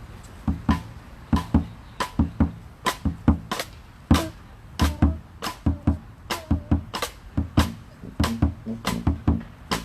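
Drums or hand percussion playing a syncopated groove, with low booming hits mixed with sharp, bright strikes at about two to three a second.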